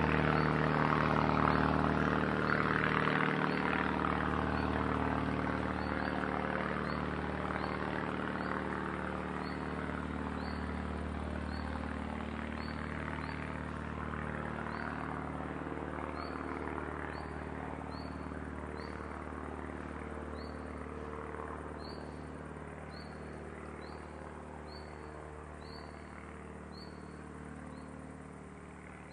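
Small propeller plane's engine drone slowly fading away into the distance, over a regular high chirp from crickets or birds repeating a little faster than once a second, which stands out more as the plane fades.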